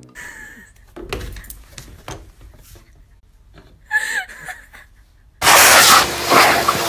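Handheld leaf blower switched on about five seconds in: a sudden, loud rush of air. Before it come quieter scattered clicks and knocks.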